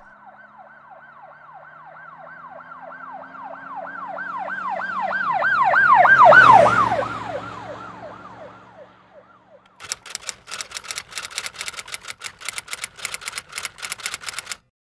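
Emergency-vehicle siren sound effect, a fast-cycling wail of falling sweeps about three times a second, that grows louder, passes, and fades away with a drop in pitch. About ten seconds in, a rapid run of typing clicks starts as a caption types itself out, and it stops abruptly just before the end.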